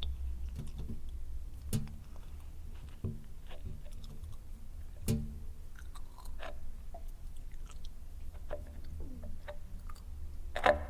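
Eerie sound-design ambience made from a saxophone: a steady low drone under scattered wet, slimy clicks and drips, with a few pitched thumps. The loudest thump comes near the end.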